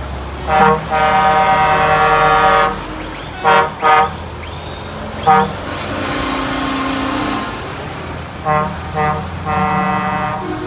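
Truck air horns sounding as trucks drive past: a short toot, then a long blast, two quick toots and another short one, a lower steady horn tone, then two quick toots and a long blast near the end. Truck engines run underneath.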